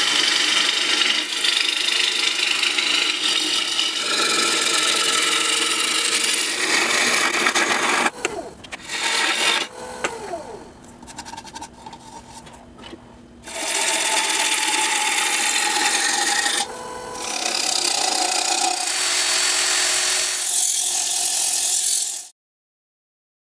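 Black walnut bowl turning on a wood lathe. A gouge cuts the wood with a steady loud scraping hiss, then there is a quieter spell in the middle while the bowl is stopped. After that, sandpaper rubs against the spinning bowl, and the sound cuts off abruptly near the end.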